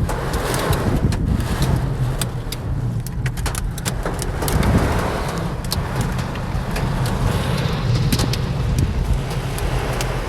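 A car engine running steadily, heard from inside the cabin, under a hiss of storm noise with scattered sharp taps on the car.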